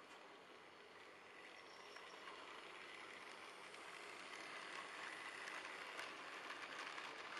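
Model railway steam locomotive and coaches running along the track: a faint motor whir and wheel noise that grows louder as the train comes closer, with light clicks over the rail joints near the end.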